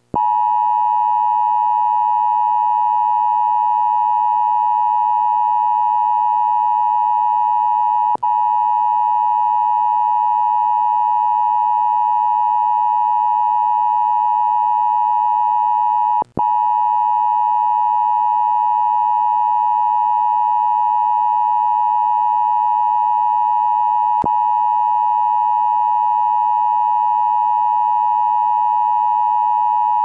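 One loud, steady electronic alert tone, held unbroken except for two very brief dropouts about eight and sixteen seconds in: the NOAA Weather Radio 1050 Hz warning alarm tone that opens an Emergency Alert System weather message.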